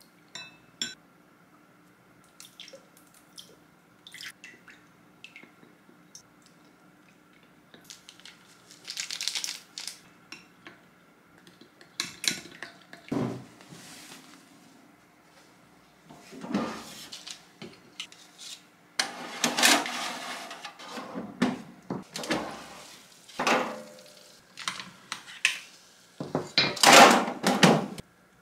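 Kitchen handling sounds: a spoon clinking and scraping in a glass bowl, with dishes and utensils knocking on the counter. Scattered short clicks at first, growing into denser, louder clattering in the second half.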